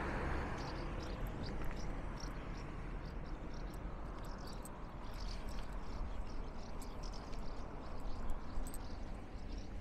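Steady rushing of water being pumped out of a polder pumping station, with many short, high chirps from small birds over it.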